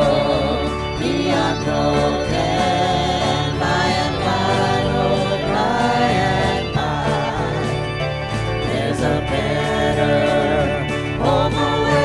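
Country gospel band playing, with voices singing over a steady bass line.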